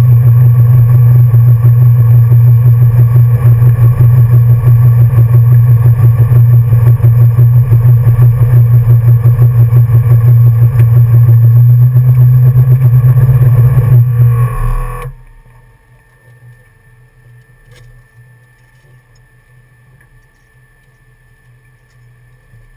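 A 1966 Ford Mustang's 347 stroker small-block V8, heard from inside the cabin, running loud and steady at low revs with an even pulse. About fourteen seconds in it is switched off and runs down.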